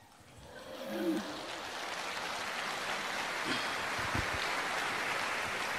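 Concert audience applauding, swelling up within the first second and then holding steady.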